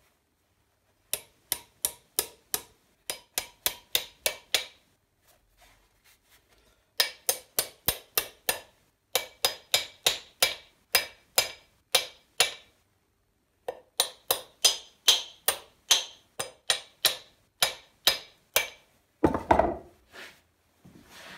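Claw hammer striking a hatchet head, driving a metal wedge into the eye to fix the head on its wooden handle: runs of sharp metal-on-metal blows, about three a second, each with a brief ring, in four bursts with short pauses between. Near the end comes a single duller, longer knock.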